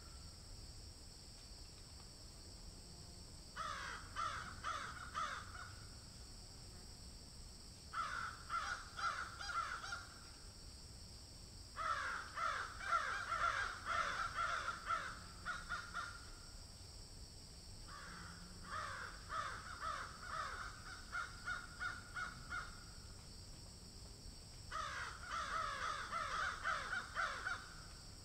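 Birds giving harsh, cawing calls in five bursts of quick repeated notes, each a few seconds long with short pauses between, over a steady high-pitched hiss.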